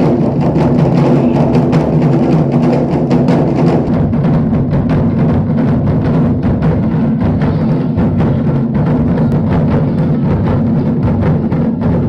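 Japanese taiko ensemble: many players beating large barrel-shaped nagado-daiko drums together in fast, continuous drumming.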